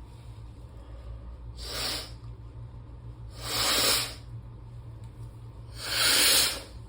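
A person blowing a congested nose, three forceful blows a second or two apart, each louder than the last. The congestion is from allergies and is not fully cleared.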